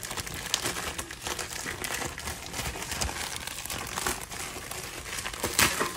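USPS Priority Mail envelope crinkling and rustling as it is handled and opened, with one louder crackle near the end.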